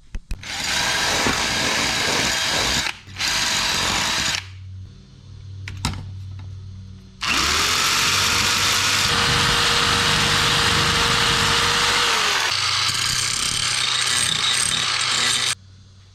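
Power tool working a metal fence brace bracket: two short bursts, then a longer run of about eight seconds in which the motor spins up to a steady whine.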